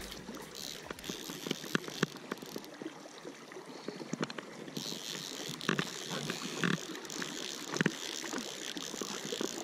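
Handling noise close to the microphone: irregular clicks and knocks with rubbing as the fisherman's knit sleeve and hand work a fly rod and reel.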